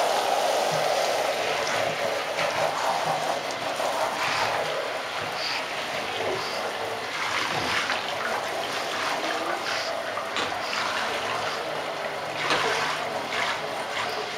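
Handheld shower head spraying water onto a dog's fur in a bathtub: a steady rush of running water.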